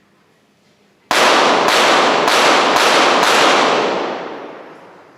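Five rapid pistol shots from a .22 Short rapid fire pistol, about half a second apart, fired as one five-shot series, with a long echo dying away after the last.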